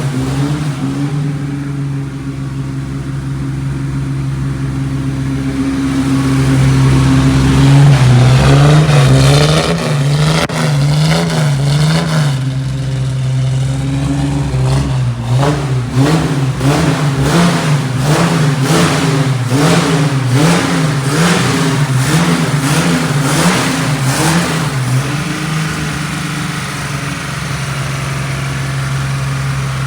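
Six-cylinder engine of a 1973 Chevrolet Opala SS, fed by a Weber carburettor and breathing through a stainless-steel exhaust, running at a steady idle and then revved over and over in short blips, its pitch rising and falling, while the carburettor is being adjusted. It settles back toward idle near the end.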